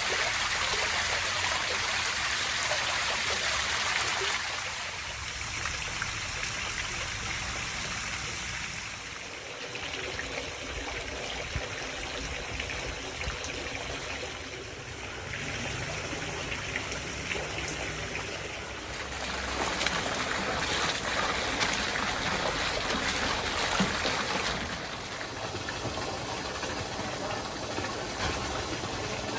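Water from a garden fountain splashing and trickling steadily, louder for the first few seconds and again for a stretch past the middle.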